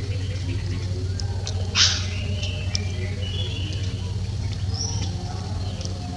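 Small birds chirping in short high notes over a steady low hum, with one short, loud, hissy burst about two seconds in.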